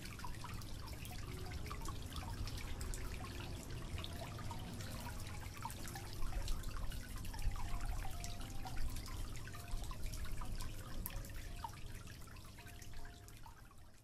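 Water from a small cement tabletop fountain trickling and dripping into its basin, a steady patter of small plinks and splashes. It fades out near the end.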